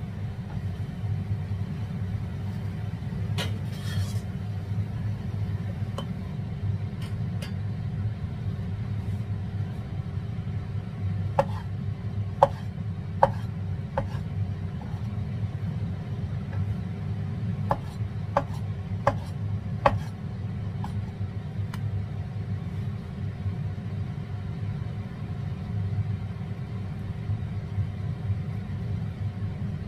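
Chinese cleaver knocking on a bamboo cutting board as it slices through a fried fish patty: a dozen or so short, irregular knocks, most of them bunched in the middle stretch, over a steady low rumble.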